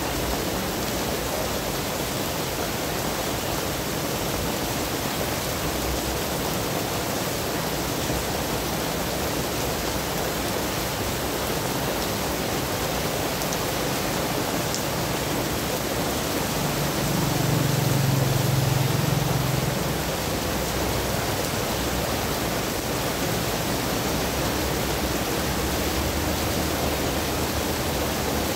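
Heavy rain pouring down on a wet street, a steady even hiss. About two-thirds of the way through, a low rumble swells for a few seconds and fades.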